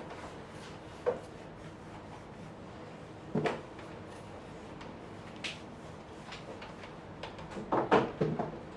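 Drawing strokes scraping on paper during a quick sketch: a few scattered strokes, then a quick run of several near the end, over a steady low hiss.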